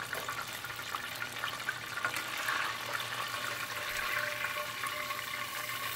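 Chicken drumettes deep-frying in hot oil, near the end of their first fry: a steady sizzling hiss with many small crackles.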